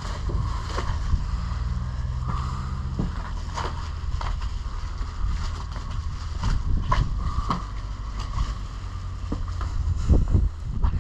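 Wind buffeting the microphone as a steady low rumble, with a low hum over the first three seconds and scattered short clicks and scrapes throughout.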